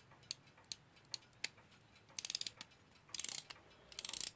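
Westclox Big Ben Style 1 alarm clock movement with its mainspring freshly fitted, clicking: a few separate clicks, then three short bursts of rapid ratchet-like clicking, as the spring is wound up and its power reaches the pallets.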